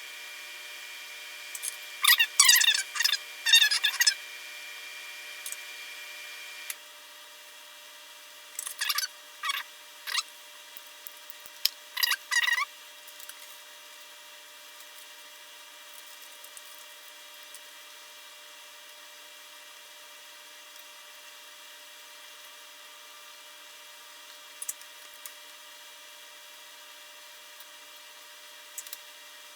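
Hand work at a workbench while small capacitors are soldered onto a circuit board: two clusters of short, squeaky scraping strokes, then a few small clicks. A faint steady hum stops about seven seconds in.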